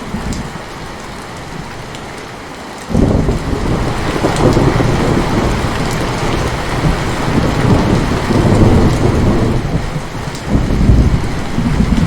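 Heavy rain falling steadily, and about three seconds in a long low rumble of thunder breaks in suddenly and rolls on, swelling again twice before the end.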